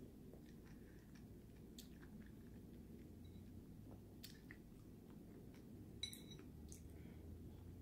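Faint chewing of a sugared strawberry: soft, wet mouth clicks over a low steady hum. About six seconds in comes a sharper click with a brief metallic ring as the fork goes to the mouth for the next bite.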